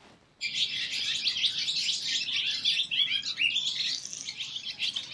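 Barn swallows twittering: a fast, continuous run of high chirps and trills that starts about half a second in.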